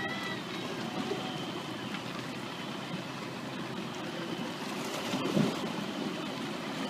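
Steady murmur of a large outdoor crowd of spectators, with one dull firework bang about five and a half seconds in.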